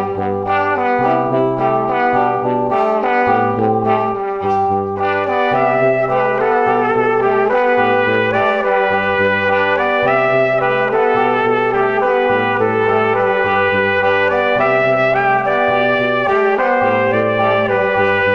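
Background music with a low bass line that moves to a new note about once a second under sustained higher notes.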